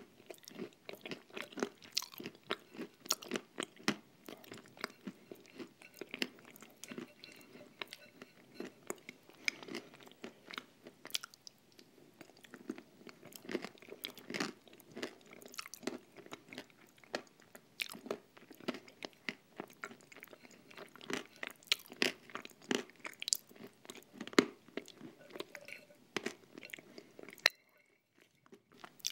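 Eating a thick cream mixed with crunchy nut crumbs: a rapid, steady run of small wet mouth clicks, chewing and light crunches, which stops briefly near the end.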